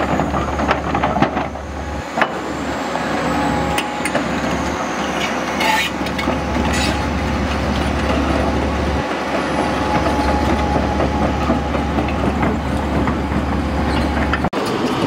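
Hydraulic demolition excavator at work on a concrete structure: its diesel engine running steadily under scattered cracks, knocks and clatter of breaking concrete and falling debris.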